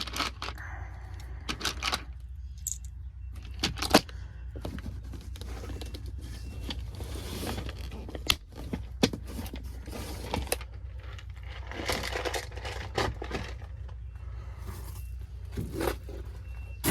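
Footsteps and the rustle and scrape of clothing and carried gear as a person walks, with scattered irregular knocks over a steady low hum.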